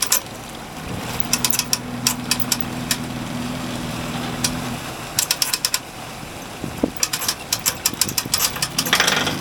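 Boat-trailer winch ratchet clicking in quick runs as the strap is cranked in, over an engine running steadily for a few seconds. A short rush of noise comes near the end.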